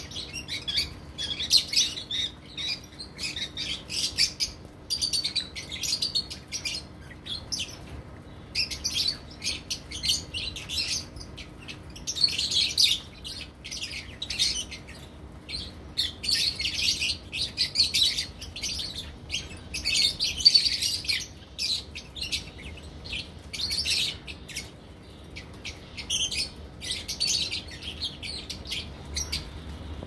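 A flock of lovebirds chattering: many overlapping shrill chirps and squeaks in dense bursts a second or two long, with short lulls between them.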